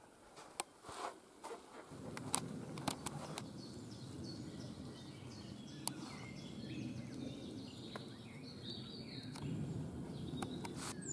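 Small birds chirping and singing in woodland over a steady low rush of background noise. In the first two seconds, before the rush sets in, a few sharp clicks and taps stand out against near quiet.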